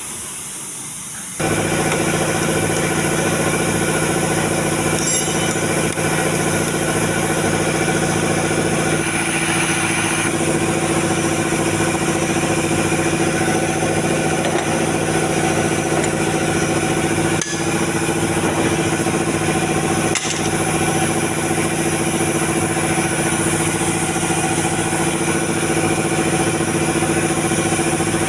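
A car engine idling steadily. It cuts in abruptly about a second and a half in and then holds an even, unchanging note.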